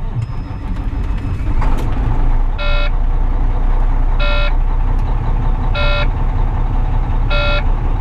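Volvo 780 truck's Cummins ISX diesel cranking on a cold start, catching within about two seconds and settling into a steady idle. Over the idle, the cab's low-air-pressure warning buzzer sounds in short beeps about every one and a half seconds. The air system has bled down overnight to under 60 psi, which the owner puts down to a small leak.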